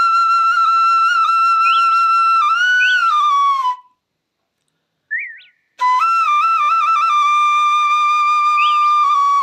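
Flute melody of long held high notes decorated with quick grace-note flicks. It breaks off for about two seconds just past three seconds in, then comes back with a short trill and holds a long, slightly lower note.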